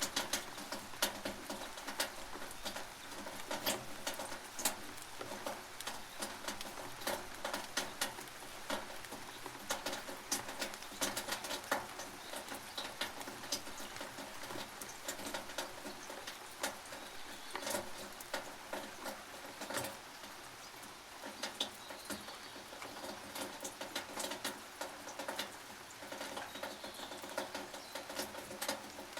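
Rain dripping and pattering on a tin roof: a dense, irregular ticking of drops on the metal over a steady hiss of rain, with fewer loud drops around the middle.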